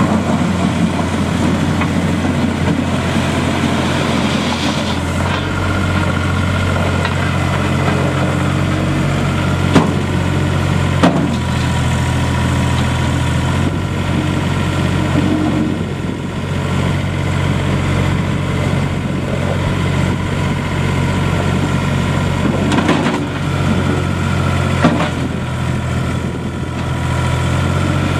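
New Holland LS180.B skid steer loader's diesel engine running steadily, its note and load shifting now and then, with a few sharp knocks.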